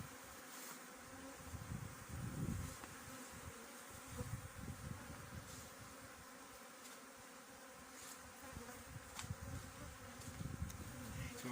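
Honeybees flying in numbers around the hives: a continuous buzzing hum that swells and fades as bees pass near.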